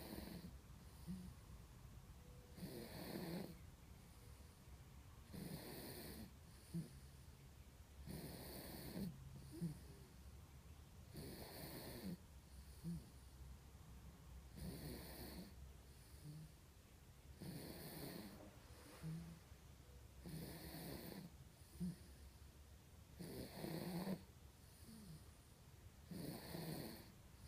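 Sleeping baby snoring quietly, one snore about every three seconds.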